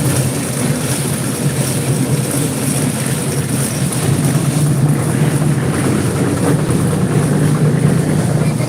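A machine's engine running steadily with a low, even hum, as from the concrete-pouring machinery.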